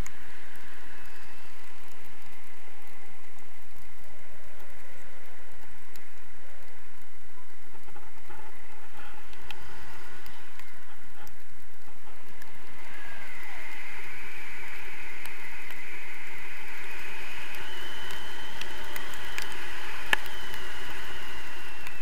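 Wind rushing steadily over the action camera's microphone in paraglider flight, with a faint high whistling tone coming in about halfway through.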